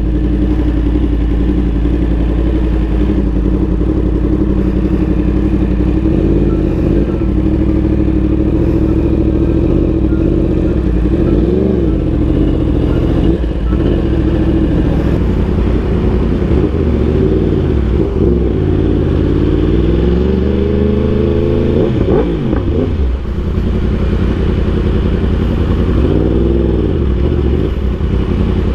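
Yamaha R1M's crossplane inline-four engine running through an Austin Racing GP1R exhaust while ridden, its pitch rising and falling several times, with one longer climb and drop about two-thirds of the way through.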